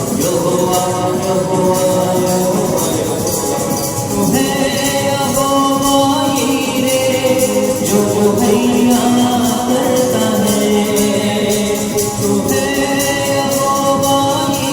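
Gospel worship music: voices singing long held notes over a band, with percussion keeping a steady beat.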